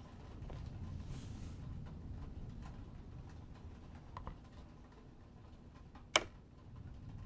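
Faint handling sounds of a vinyl record being laid onto a turntable over a low steady hum, with one sharp click about six seconds in.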